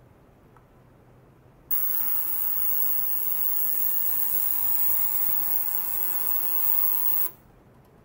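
Ultrasonic cleaner bath running: a loud hissing buzz with several steady high whines, from the transducer driving the water and the stainless steel containers standing in it. It starts abruptly about two seconds in and cuts off abruptly about five seconds later, leaving a faint low hum.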